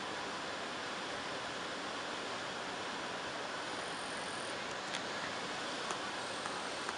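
Waterfall: white water pouring over a rock ledge into a pool, a steady rushing noise, with a few faint ticks in the second half.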